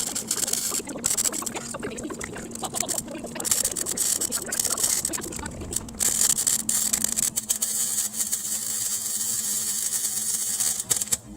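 MIG welder arc crackling and sputtering in several runs of a few seconds with short breaks between them, welding a patch onto a rusty exhaust pipe; it stops near the end.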